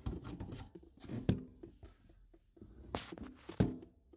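Irregular knocks, clicks and rustling of braided steel supply hoses and metal tap fittings being handled under a sink, with louder knocks about a second in and twice near the end.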